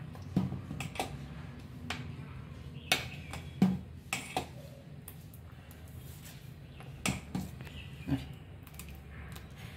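Steel ladle stirring thick rice payasa in a stainless steel pot, clinking and knocking against the pot's side about eight times at an irregular pace. A steady low hum runs underneath.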